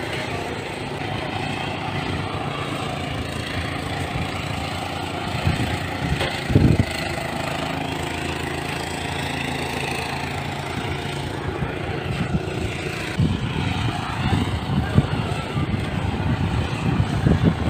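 An engine running steadily at idle under people talking, with gusts of wind buffeting the microphone near the end.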